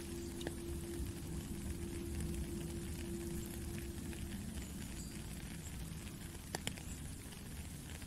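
Steady rain falling onto a puddle and wet ground, with a few sharper single drops standing out. A soft flute holds one low note underneath and stops a little past halfway.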